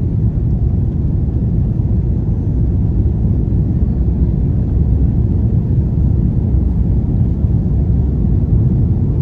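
Cabin noise of an Airbus A330-243 climbing just after liftoff: its Rolls-Royce Trent 700 turbofans and the rushing air make a loud, steady low rumble.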